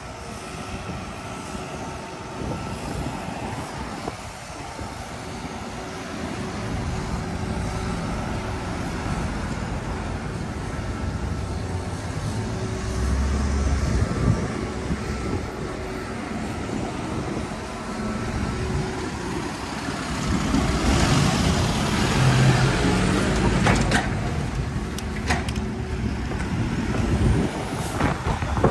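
Road traffic on a city street: motor vehicles passing, with a low rumble that swells about halfway through and again for much of the last third as they go by.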